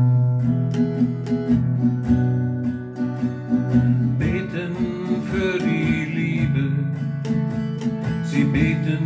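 Acoustic guitar strummed in an instrumental passage of a song, with a wavering higher melody line joining about four seconds in.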